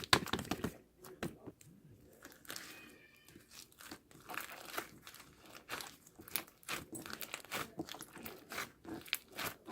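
Dense, irregular crinkling and crackling from a slime and its plastic packaging being handled and opened, with a louder burst of crackles at the start.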